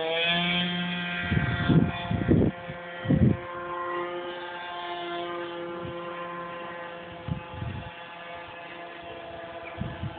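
RC pylon racer's motor running at full throttle in flight, a steady buzzing tone that drops slightly in pitch early on and slowly fades as the plane flies away. A few short low thuds come in the first few seconds.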